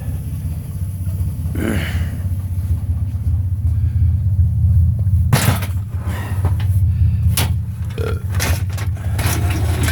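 A man belching, over the steady low hum of an idling vehicle engine, with a few sharp knocks.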